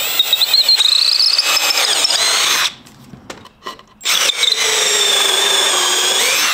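Cordless drill boring pilot holes into a pine 2x4 with a twist bit: two runs of a high, squealing motor whine, each about two and a half seconds long, with a short pause between them. The whine rises in pitch during the first run.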